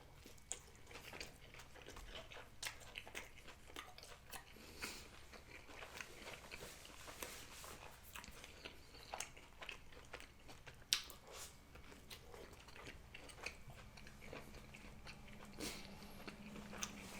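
Faint chewing and biting of a steak and cheese grinder sandwich, with many small mouth clicks and one sharper click about eleven seconds in.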